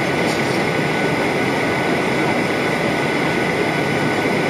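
Steady cabin noise of a Ryanair Boeing 737-800 in cruise: the even rush of air along the fuselage and the hum of its jet engines, with a thin steady high tone running through it.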